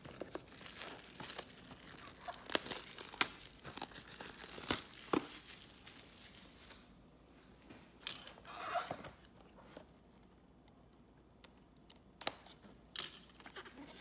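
Plastic wrap being torn and crinkled off a trading-card hobby box: dense, sharp crackling for about six seconds, then quieter, with scattered crackles and handling rustles as the box is opened.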